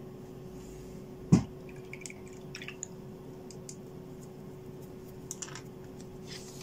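A single sharp knock about a second in, as a paintbrush is set down on the tabletop, then faint rustles and small clicks of hands handling the paper, over a steady low hum.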